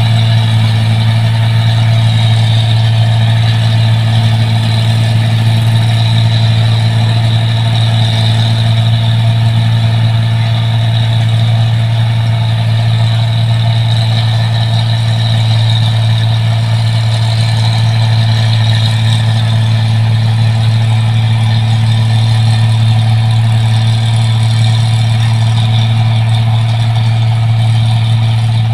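New Holland 1545 rice combine harvester running steadily: a constant deep engine hum with a steady higher whine above it, unchanging throughout.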